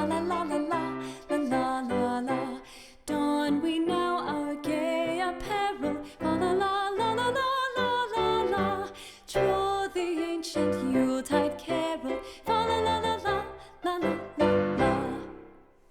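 Background music with a melody over chords, fading out near the end.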